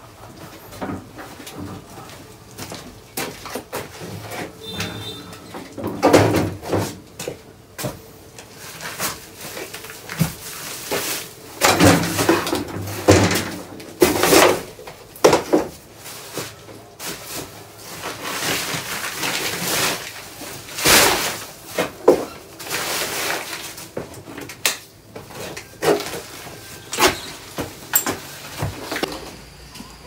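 Woven plastic sacks rustling and knocking as they are lifted and handled over a wheelbarrow, in irregular bursts with louder spells about six seconds in, around twelve to fifteen seconds, and about twenty-one seconds in.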